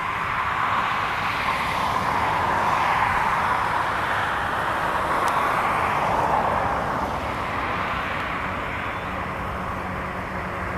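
Jet airliner passing, its engine noise a broad rush that swells over the first couple of seconds and fades away after about seven seconds.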